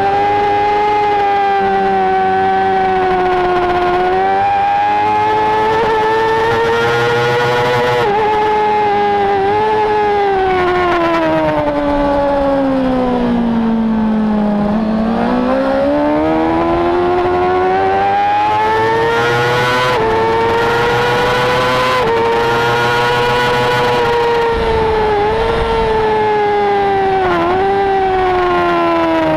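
Racing motorcycle engine at race pace, heard from on board the bike, its pitch rising and falling with the throttle. About halfway through the note falls steadily into a low point as the bike slows for a corner, then climbs again as it accelerates out, with brief dips at gear changes.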